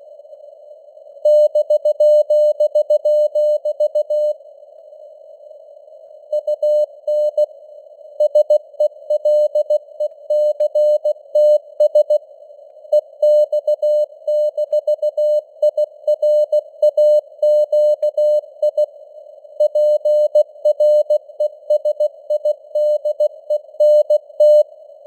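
Morse code sent at 16 words per minute: a single tone near 600 Hz keyed in dots and dashes, with longer gaps between words. The tone sits in a narrow band of simulated radio static.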